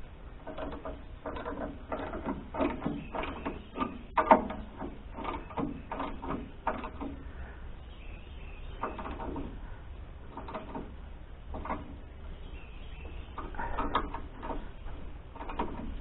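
Ratchet wrench clicking in short bursts, tightening the bolts that hold the adjusted stop strap on a sawmill.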